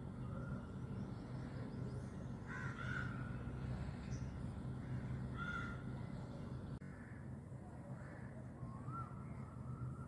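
A crow cawing: one caw about two and a half seconds in and another about three seconds later, with a fainter call near the end, over a steady low background hum.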